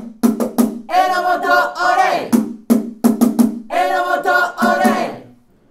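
A football supporters' player chant sung to a beating drum, in short shouted phrases. It breaks off shortly before the end.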